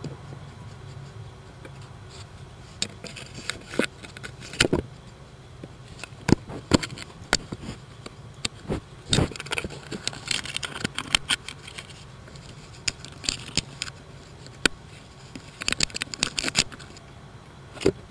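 A raccoon pawing and handling the camera right at the microphone: irregular knocks, taps and scrapes against the camera, coming in quick clusters and louder spells.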